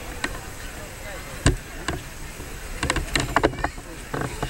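People talking in an outdoor crowd over a low rumble, with a single sharp knock about a second and a half in.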